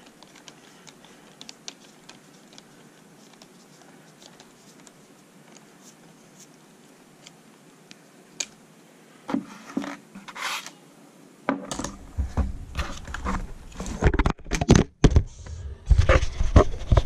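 Faint, scattered light clicks of a hand tool working a small screw out of an RC truck's steering knuckle. Then, from about eleven seconds in, loud irregular knocks and deep thuds as the camera is bumped and knocked on the table.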